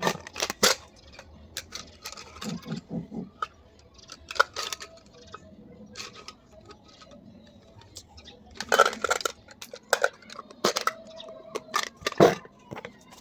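Desk handling sounds: irregular small clicks, taps and rustles, with a few soft low taps about two and a half seconds in and the loudest clusters about nine and twelve seconds in.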